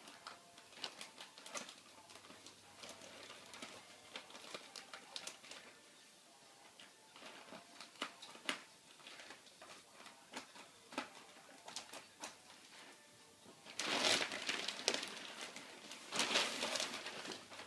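Shipping package being opened by hand: scattered crinkling and rustling of paper and cardboard packaging, with a louder stretch of rustling about three quarters of the way through.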